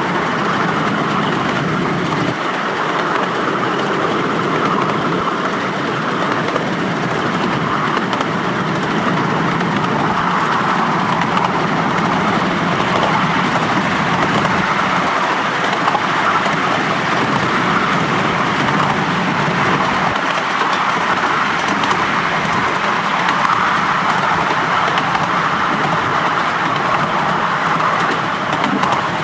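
Miniature steam railway train running along the line, heard from aboard an open carriage: a steady rumble of wheels on the rails.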